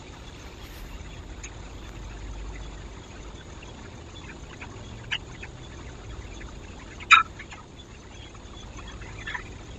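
Steady faint hiss from a security camera's microphone, broken by a few short clicks and rustles: one about five seconds in, the sharpest about seven seconds in, and a small cluster near the end.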